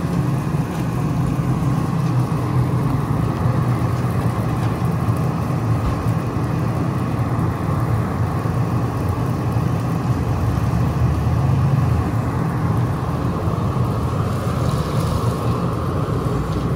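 A fire engine's diesel engine running steadily at pumping speed, supplying water to a hose line, with the rushing hiss of the hose stream on top.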